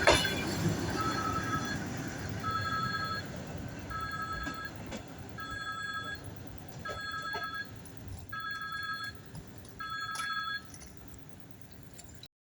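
Electronic railway-station warning signal: a two-tone beep, each about half a second long, repeating about every second and a half. It starts with a clink about a second before the first beep and cuts off abruptly near the end.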